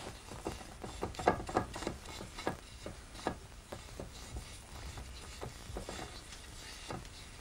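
Irregular light taps, clicks and rubbing of hand work on a cloth-covered lacquer form, as jinoko ground powder is worked into the cloth's weave. The taps are thickest in the first few seconds, over a low steady hum.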